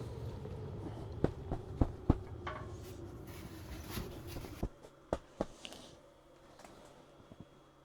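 A steady low motor-like running sound that cuts off suddenly about halfway through, with a handful of sharp clicks and knocks around it.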